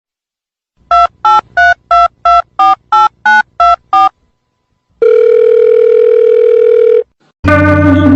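Touch-tone telephone keypad dialing: ten short beeps about three a second, then one long telephone tone for about two seconds. Music starts near the end.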